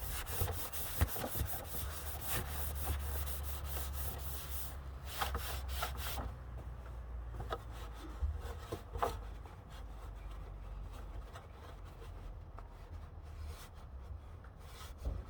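Brisk rubbing and wiping strokes during cleanup after an oil change. The strokes come thick and fast for the first few seconds, then thin out to occasional rubs and light knocks.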